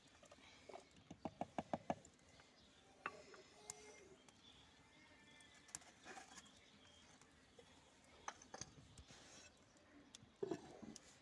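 Near silence, broken by a quick run of about six soft knocks a little over a second in and a few scattered clicks afterwards.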